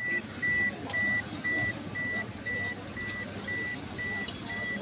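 A steady high electronic beep repeating about twice a second, each beep short and even, over faint rustling and clicking of hands at work.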